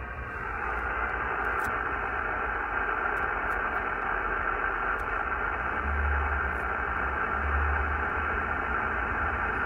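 Power line interference heard through a Yaesu HF transceiver's speaker tuned to 28.400 MHz: a steady hiss with a buzzing tone through it, the noise radiated by faulty hardware on a utility pole being driven past.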